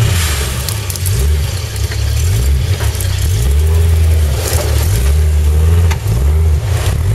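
A modified off-road 4x4 truck's engine revving up and down over and over under load as it climbs a steep, rough track, with a few sharp knocks.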